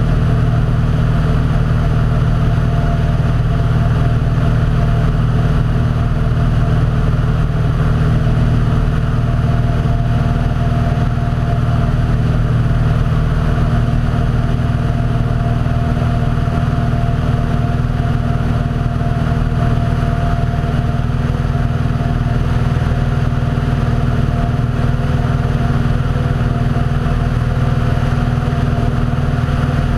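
Small aircraft's engine running steadily in flight: an unbroken drone with a stack of low, even tones and a higher steady tone, over a rush of air.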